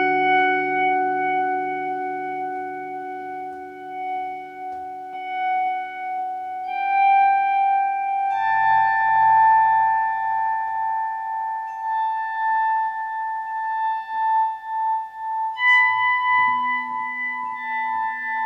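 Electric guitar through a Vox AC30 C2 valve amp with Celestion Greenback speakers, playing a few long, sustained high notes that step up in pitch every few seconds. A fading pulse of echo repeats sits under the first few seconds.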